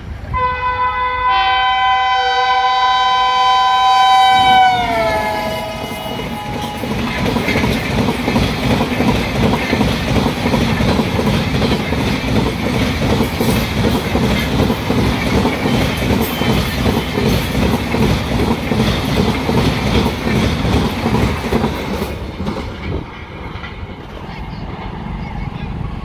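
Indian Railways WAP-7 electric locomotive sounding a long multi-tone horn that bends down in pitch as it passes at speed. It is followed by the rhythmic rumble and clatter of the Rajdhani Express coaches' wheels running past at speed, which dies down near the end.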